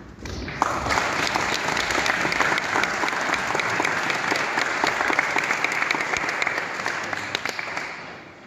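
Concert audience applauding: many hands clapping, setting in about half a second in and dying away near the end.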